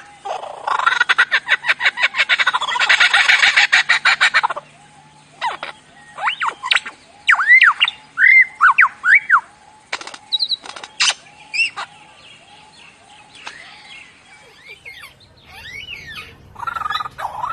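Lyrebird singing its mimicry song: a loud, fast rattling run of notes, then a string of separate arched whistles and sharp clicks, fading to fainter calls before the rattling starts again at the very end.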